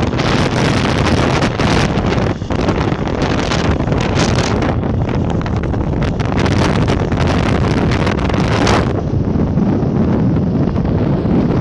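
Wind buffeting the phone's microphone as it travels along in a moving vehicle: a loud, continuous low rumble with gusty hiss on top, which eases a little about nine seconds in.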